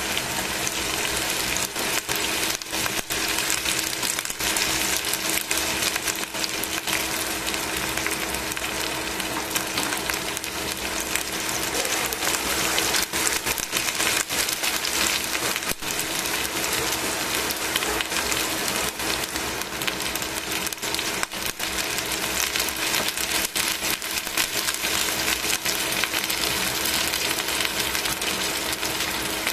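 Chicken pieces frying in oil in a stainless steel pan, sizzling with a steady, dense crackle of small spattering pops.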